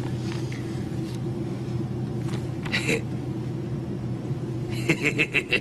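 Steady low drone of an airliner cabin, with a short run of quick laughter near the end.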